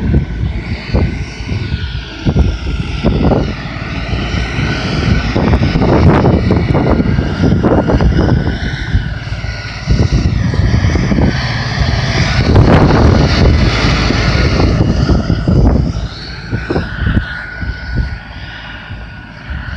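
2017 LS XR4155H 55 hp tractor's diesel engine running under load while clearing snow, its pitch rising and falling as it works, louder in two stretches and easing off near the end.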